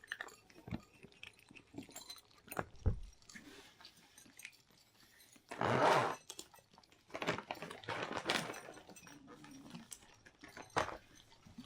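A cat chewing and crunching food in small, scattered clicks, broken by two louder rustling noises about halfway through.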